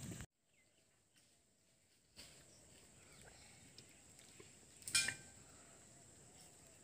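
Near silence: a stretch of dead silence, then faint outdoor background with a single short sharp noise about five seconds in.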